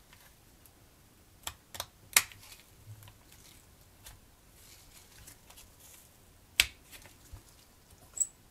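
Small plastic parts of a scale-model car interior clicking and knocking as gloved hands handle and press them into place: three quick clicks about a second and a half in, a sharp one past the middle, and a short high tick near the end.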